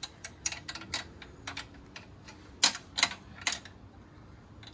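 Irregular sharp metallic clicks and clinks of a socket wrench and a 10 mm wrench working the long bolt through a sway bar bushing. The loudest come in a cluster about two and a half to three and a half seconds in.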